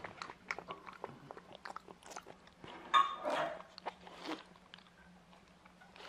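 Black Persian cat eating from a bowl: a quick run of small crisp crunches and chewing. About three seconds in there is one brief, louder sound, and a few softer crunches follow it.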